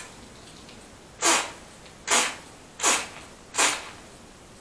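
Hand-pump pressure sprayer (a ProWin Omnifoam bottle converted not to foam, filled with water) giving four short hissing spray bursts, a little under a second apart. Short bursts like these spray a wide fan.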